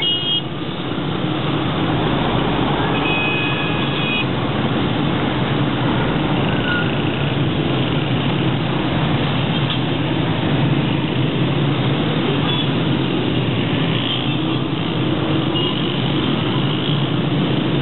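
Steady roar of dense city traffic: the engines and tyres of cars, buses and motorcycles running and passing through a busy intersection.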